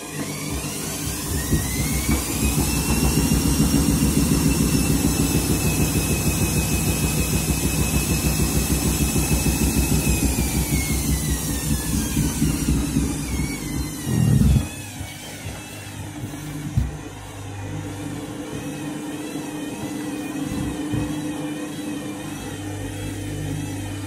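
Front-loading washing machine's drum motor whining up in pitch over the first few seconds, holding for several seconds and then winding down, over a fast rhythmic thumping from the drum, with a load the owner thinks is still out of balance. A loud thud comes about fourteen seconds in and a smaller one a couple of seconds later, then the drum turns slowly with a quieter hum.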